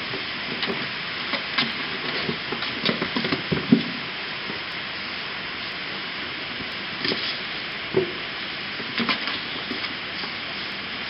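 Kittens scratching and knocking at cardboard boxes and batting a hanging string toy: clusters of short scrapes and soft thumps, the loudest about four seconds in, over a steady hiss of rain.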